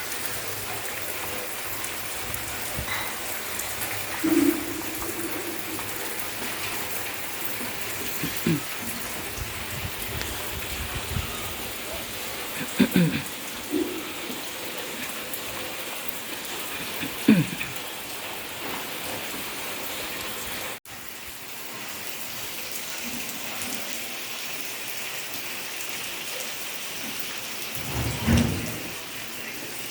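Steady rain falling, a constant hiss, with a handful of short, louder sounds breaking through now and then.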